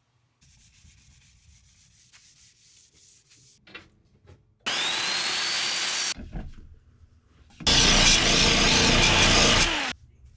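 Electric router cutting a 1/2 inch round-over curve on the edge of a wood piece: the motor spins up with a rising whine and cuts for about a second and a half, stops, then makes a second, louder two-second pass about a second later. Before that, faint handling of the piece and a few light knocks.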